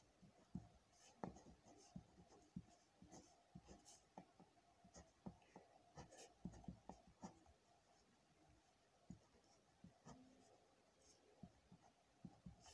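Pen writing on paper: faint scratches and taps of short strokes, close together for the first seven seconds or so, then sparser after a brief pause.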